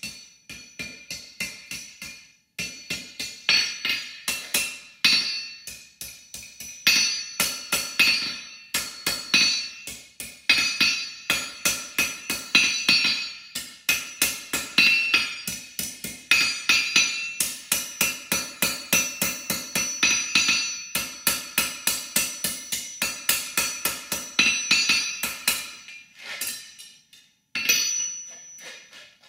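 Hand hammer striking hot steel on an anvil at about three blows a second, each blow ringing, in runs broken by short pauses.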